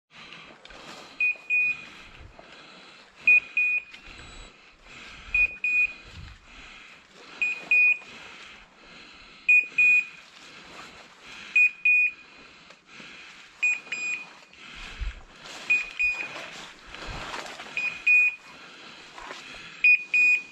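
A hunting dog's electronic beeper collar giving a double beep about every two seconds, the regular signal of a setter still moving on its search. Between beeps, footsteps rustle through dry leaves and brush.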